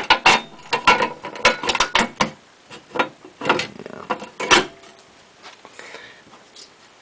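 A quick run of sharp clicks and knocks as a metal electrical enclosure with a hinged lid and its meter socket are handled on a wooden table, dying away after about four and a half seconds.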